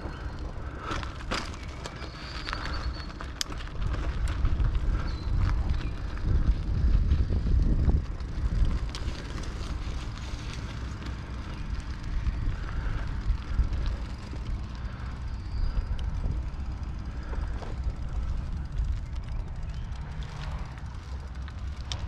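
A Raleigh Redux bicycle riding on the road, with wind rumbling on the GoPro's microphone and tyre noise, and a few clicks from the bike in the first few seconds.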